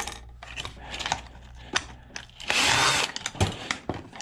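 Power drill run in one short burst of about half a second, about two and a half seconds in. Scattered clicks and knocks of metal parts being handled come around it, with a sharp knock just after the burst.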